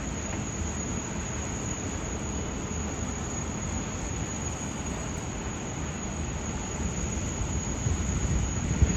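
Airbus A330-323 airliner on landing approach: a steady low jet-engine rumble from its Pratt & Whitney PW4000 turbofans, growing a little louder near the end as wind buffets the microphone.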